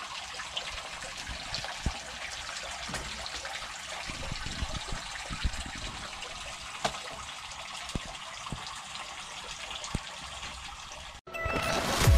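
Water running from a hose into a tarp-lined fish tank: a steady splashing trickle, with a few soft knocks. About eleven seconds in it cuts off and electronic music with a heavy beat begins.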